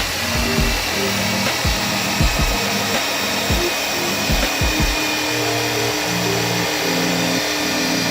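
A power tool running steadily under background music, with a beat of low thumps that stops about five seconds in.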